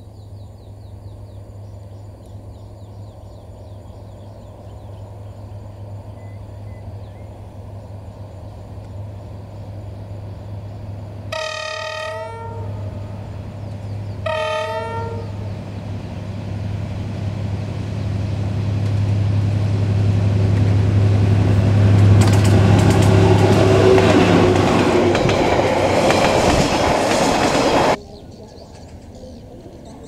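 D19E diesel-electric locomotive running toward the listener, its engine hum steadily growing louder, sounding its horn twice (about a second each, a few seconds apart) midway through. It then passes close with loud running noise and wheel clatter, which cuts off suddenly near the end, leaving a fainter engine hum from another approaching locomotive.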